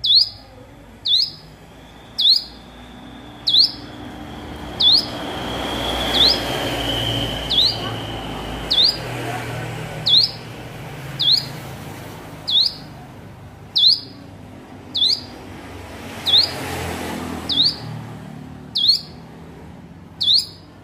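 A ciblek gunung, a small prinia songbird, repeats one short, sharp, high call about every 1.3 seconds, each a quick dip and rise in pitch. A low background rush swells a few seconds in and again near the end.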